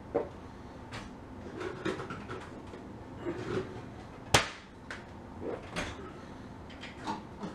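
Kitchen handling noises: short knocks and clicks of things being moved about at a counter, with one sharp, loud click a little past halfway. Near the end a dishwasher door is pulled open.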